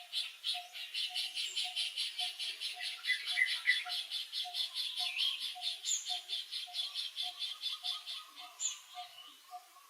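Repeated animal calls: a rapid high chirping pulse runs throughout over a lower note that pulses about twice a second.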